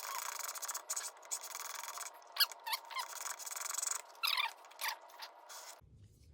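Steel broadhead edge stroked back and forth on a Work Sharp knife sharpener's abrasive stone: a steady rasping scrape with short high squeaks. It stops abruptly near the end.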